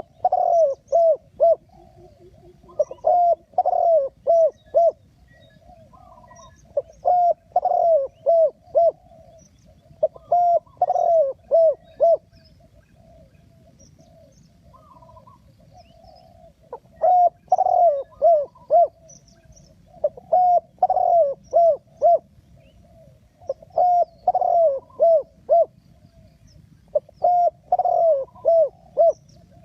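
Spotted dove cooing: repeated phrases of three or four low coo notes, one about every three and a half seconds, with a pause of a few seconds midway. Faint chirps of small birds sound higher up.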